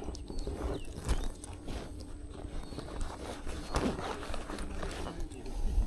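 Irregular rustling and soft knocks, with a low rumble of wind on the microphone.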